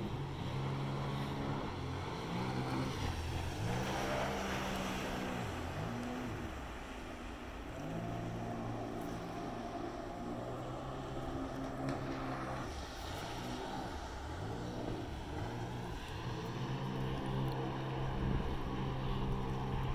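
Jet ski engines running out on the water, a steady drone whose pitch rises and falls again and again as the riders throttle up and back off through their turns.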